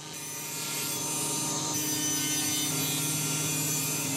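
SawStop cabinet table saw ripping a sheet of 3/4-inch birch plywood. A steady motor hum runs under the hiss of the blade cutting, which builds over the first second as the sheet is pushed into the blade.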